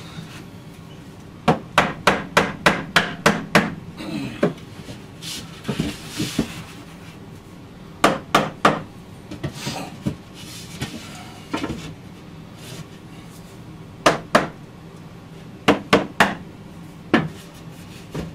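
A hammer tapping a wooden window-return frame into its opening to bring it flush. The light taps come in short quick runs with pauses, a run of about seven early on and several shorter runs later. Softer rubbing sounds come between the runs.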